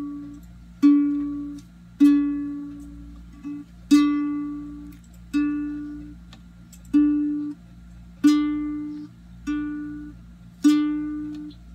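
Beachman ukulele: one string plucked again and again, about eight times, each note ringing and fading before the next, at the same pitch every time, as the string is checked while the ukulele is being tuned.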